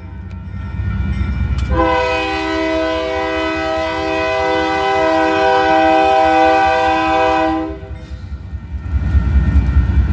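Locomotive air horn sounding one long blast of about six seconds, several notes at once, starting about two seconds in. A low train rumble runs beneath and grows louder near the end.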